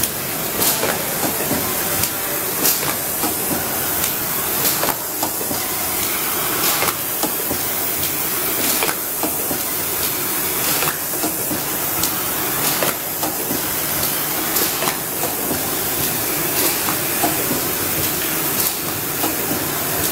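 Automatic UV screen printing machine for plastic rulers running: a steady hiss with a sharp clack about every two seconds as it cycles through its print strokes.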